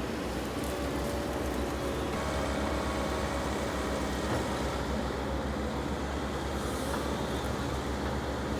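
Heavy equipment engine running steadily, with a faint whine above the low rumble.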